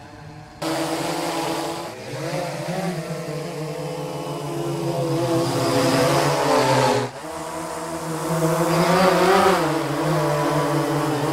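Quadcopter drone motors and propellers humming, the pitch rising and falling. The sound cuts in abruptly about half a second in and breaks off sharply around seven seconds before resuming.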